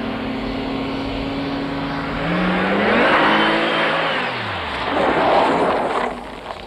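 Maserati Biturbo's twin-turbo V6 running steadily at low revs, then revving up sharply about two seconds in with a loud rush of tyre noise, and falling steeply back in pitch; a second rush of noise follows shortly before the end. A sudden burst of throttle that makes the light rear end break away into a skid.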